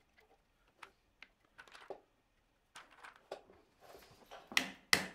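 Faint small clicks and taps of a glue brush working in domino mortises and wooden domino tenons being pushed into a rail end, with two louder sharp knocks near the end.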